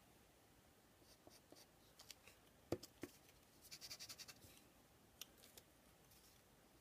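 Faint pencil strokes on paper while small toes are drawn: a few short scratches and taps, with a sharper tick a little under 3 seconds in, then a quick run of rapid strokes near the middle.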